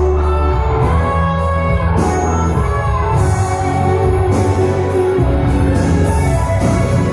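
Instrumental music with a steady beat and bass, a passage between sung lines of the song.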